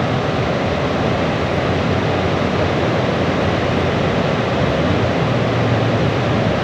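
Steady, loud roar of Niagara Falls' rushing water, with no bangs or breaks.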